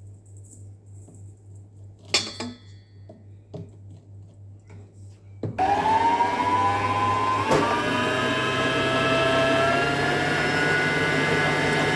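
Electric stand mixer switched on about five and a half seconds in, its motor whine rising as it comes up to speed and stepping up again with a click about two seconds later, beating butter and icing sugar together. Before it starts there is only a low hum and a single clink.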